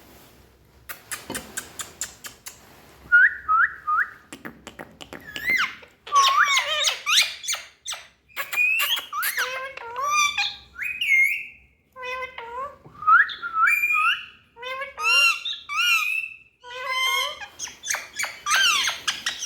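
Indian ringneck parakeets calling: a run of clicks in the first few seconds, then many short chirps, whistles and squawks in quick succession, gliding up and down in pitch.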